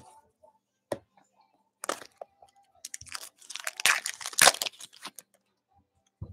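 Foil trading-card pack being torn open, the wrapper crackling and crinkling in a run of bursts for about three seconds, after a single click about a second in.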